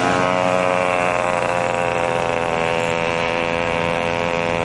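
Small gasoline engines of a motorized recliner and a small motorcycle riding alongside it, passing close by. Their steady engine note falls slightly in pitch in the first second as they go past, then holds steady.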